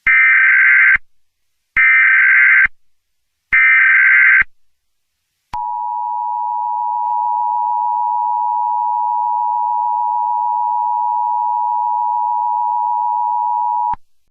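Emergency Alert System SAME header: three short bursts of screechy digital data tones, then the two-tone EAS attention signal at 853 and 960 Hz, held steadily for about eight seconds and cut off suddenly. Together they announce an emergency alert.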